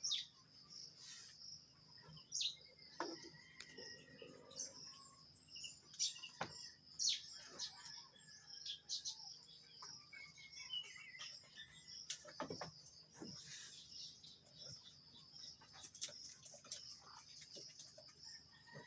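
Faint farmyard ambience: birds chirping here and there over a steady high-pitched hum, with scattered light clicks and knocks.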